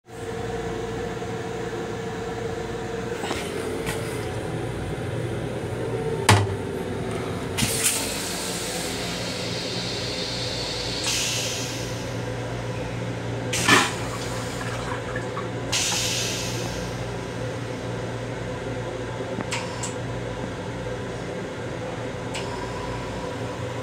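Toilet in a Long Island Rail Road M7 railcar restroom being opened and flushed: the lid clacks up, a couple of sharp knocks, and bursts of water hissing into the stainless steel bowl. A steady hum of the railcar runs underneath.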